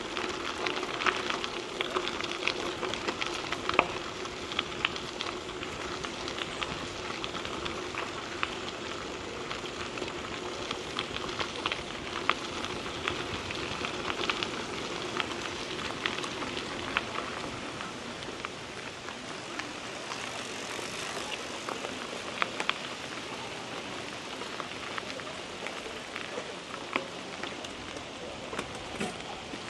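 Mountain bike tyres crunching over a gravel trail, a steady crackle dotted with many small clicks and rattles, a little softer in the second half.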